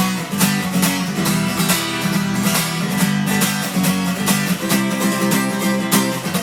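Acoustic guitar strummed in a steady rhythm, chords ringing between the strokes: an instrumental passage between sung verses of a song.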